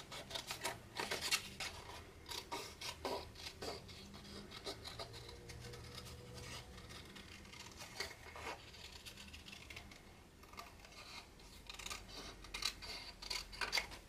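Small craft scissors snipping through cardstock in short, irregular cuts, with the snips coming thicker at the start and again near the end.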